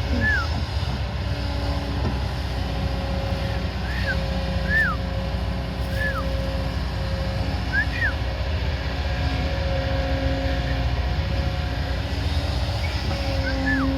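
Diesel engine of a heavy construction machine running steadily under work, with a steady whine that breaks off and resumes every second or two. Several short high chirps come and go over it.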